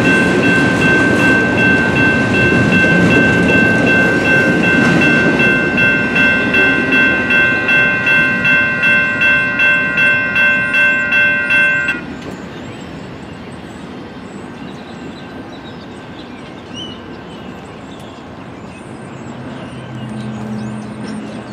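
Railroad crossing bell ringing at about two dings a second while the cars of a double-stack container train clatter past on the rails. The train sound fades as it clears, and about twelve seconds in the bell stops abruptly, leaving quieter background noise with a low hum near the end.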